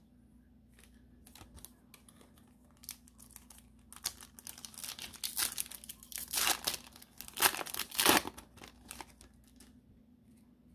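Foil wrapper of a Pokémon trading card booster pack crinkling as it is torn open, a run of sharp rustles that starts faintly, is loudest in the middle and stops near the end.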